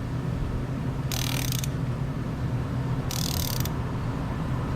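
A ratchet clicking in three short runs about two seconds apart as the plastic oil filter housing cap is screwed down, over a steady low hum.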